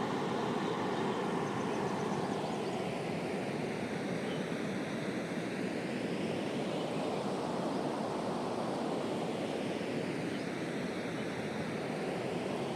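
The Ganges river's fast water rushing with a steady, unbroken noise.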